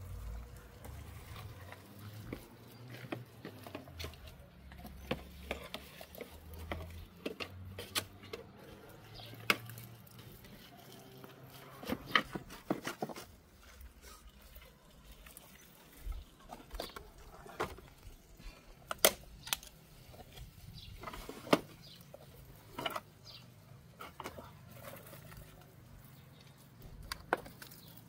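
Leafy greens being trimmed by hand over a plastic crate: irregular sharp snaps and clicks of stems breaking and being cut, with rustling leaves.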